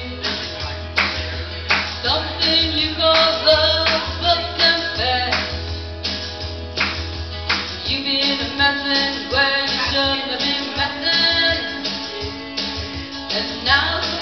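Karaoke backing track with a steady beat, played through a PA, with a woman singing along into a microphone.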